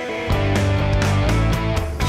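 Background rock music with guitar; a heavier part with bass and drums comes in about a third of a second in and stays louder.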